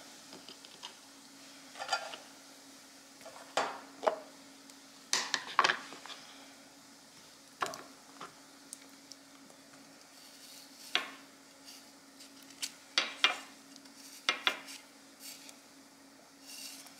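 A kitchen knife and cut orange pieces knocking and clicking on a wooden cutting board and against a plastic container, in scattered, uneven taps, over a faint steady hum.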